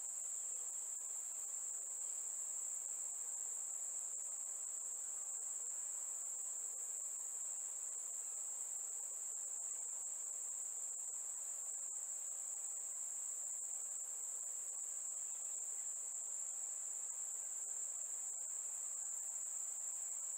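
Steady, high-pitched insect trill of the cricket kind, one continuous unchanging tone.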